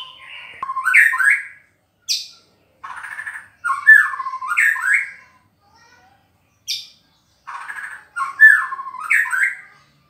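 A caged white-rumped shama (murai batu) calling to a rival. It gives the same phrase three times, each a harsh rasping note followed by loud whistled notes sliding up and down, with a short thin high note between phrases twice.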